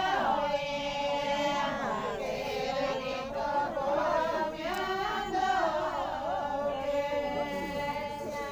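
Voices singing a Rajasthani folk song to Bhomiya ji together in a chant-like chorus, with long held notes.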